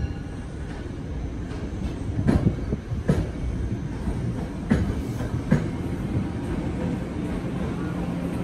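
Passenger coaches of a commuter train rolling past, a steady rumble with a handful of sharp wheel clicks over rail joints between about two and six seconds in, and a steady low hum coming in over the second half.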